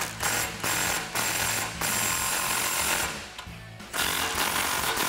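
Cordless impact wrench hammering on exhaust band clamp nuts: several short bursts, then two longer runs of rattling about a second apart as the nuts are run down tight. Background music plays underneath.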